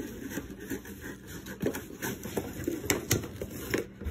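Cardboard shipping box scraping and crinkling as a dog works at it with its mouth and shoves it across carpet, with a few sharp clicks about three seconds in.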